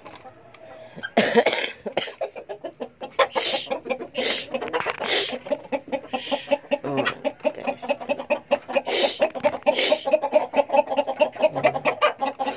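Hen clucking in a fast, steady run of short clucks while her eggs are collected from the nest. Several short scratchy noises are mixed in.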